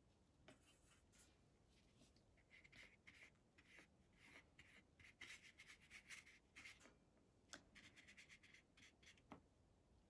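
Faint, quick strokes of a watercolour brush over paper as red paint is brushed on, busiest in the middle, with a couple of light ticks near the end.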